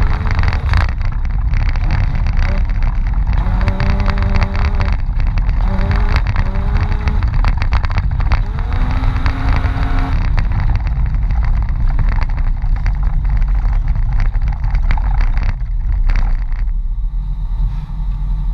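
Mitsubishi Pajero driven off-road in snow: the engine runs heavily, with continual knocks and rattles from rough ground. Short pitched tones come a few times in the first half, and the run goes quieter and steadier near the end.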